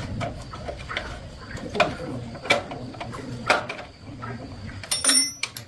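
Scattered metallic clicks and knocks of hand tools and small metal parts being handled during motorcycle repair, with a brief metallic ring about five seconds in.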